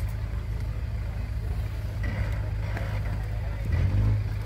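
A 4x4 off-road vehicle's engine running with a steady low rumble, swelling louder briefly about four seconds in.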